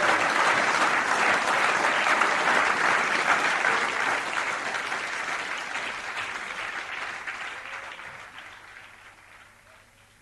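Audience applauding. The clapping holds steady for the first few seconds, then fades out gradually to near silence.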